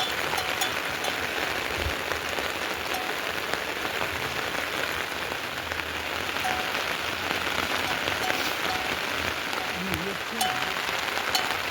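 Heavy rain falling steadily, with scattered sharper drop impacts.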